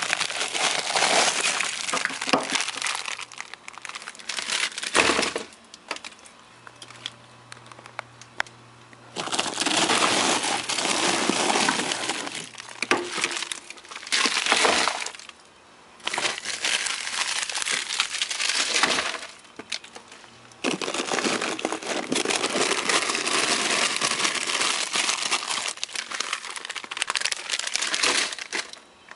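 Packed freezer frost and ice being dug out and broken by hand, crunching and crackling as chunks come loose, in several long bouts with short pauses between them.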